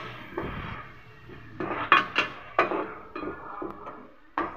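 Long metal slotted spoon scraping and clinking against a metal kadai while stirring frying onions and masala paste. The clinks come at uneven intervals, with the loudest about two seconds in and near the end.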